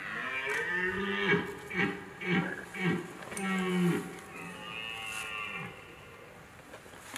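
Red deer stag roaring in the rut: a drawn-out roar broken into several short, loud bellows and a second long roar over about four seconds, then a fainter, higher drawn-out call.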